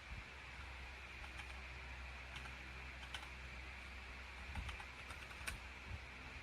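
Typing on a Rakk Pirah 66 wireless mechanical keyboard with Gateron Milky Yellow linear switches: faint, irregular keystroke clacks.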